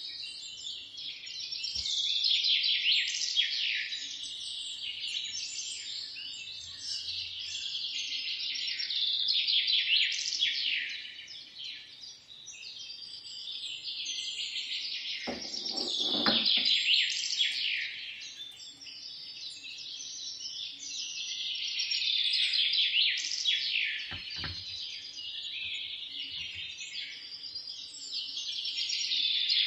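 Many small birds chirping and twittering in a dense, continuous chorus of quick high chirps that swells and fades every few seconds. A brief knock or rustle stands out about halfway through, and a smaller one later.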